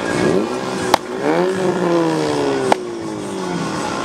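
Car engines revving as cars pull away and drive past, the pitch climbing and then sliding down. Two sharp clicks, about a second in and near three seconds.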